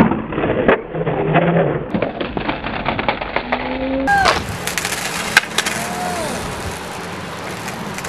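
A skater and skateboard slam onto the concrete of a skatepark bowl: a sharp impact at the start, then several seconds of clattering and scuffing from the board and body. About halfway through this gives way to a steadier outdoor background with a few short whistling glides.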